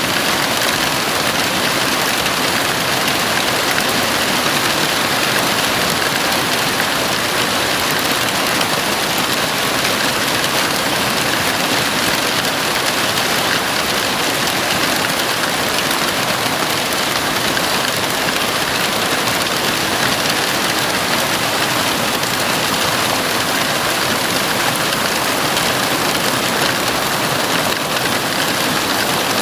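Heavy rain falling on a house roof: a dense, even hiss of countless drops that stays at the same level throughout, with no thunder.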